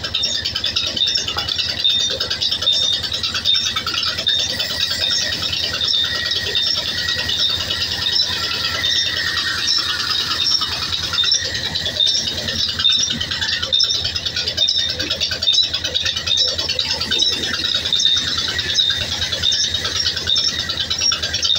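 Large vertical band saw running and cutting through a log as it is fed into the blade. It makes a steady, fast rattle.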